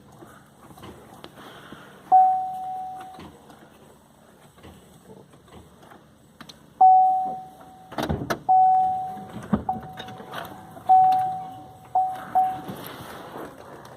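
A car's electronic warning chime, a single steady-pitched beep that starts sharply and fades out, sounding about seven times at uneven intervals, most of them in the second half. Two sharp knocks come in the middle.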